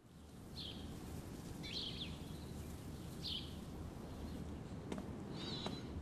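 Birds chirping, four short calls a few seconds apart, over a steady low outdoor ambience.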